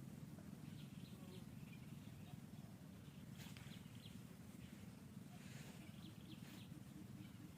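Near silence: a faint steady low background hum, with a few faint, short high chirps scattered through.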